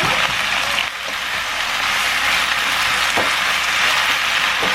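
Food sizzling in a hot frying pan: a steady hiss with a few faint clicks.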